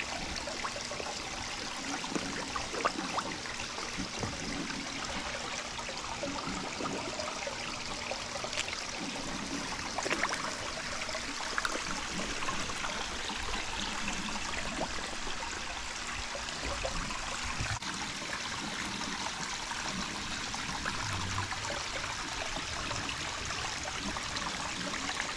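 Steady trickling and running of water into a koi pond.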